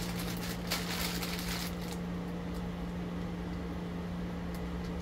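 A steady low hum, with a rustle of packaging being handled about half a second to two seconds in.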